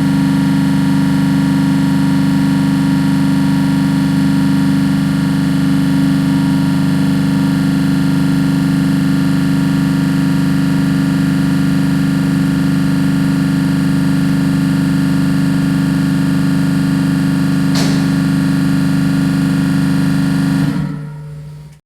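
Trane CRHR500 refrigeration compressor running on a test with a loud, steady hum, then switched off near the end, its sound dying away within about a second.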